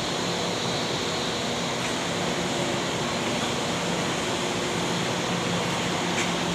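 Horizontal baler's 40-hp electric motor and hydraulic pump running steadily, a constant hum over an even machine noise.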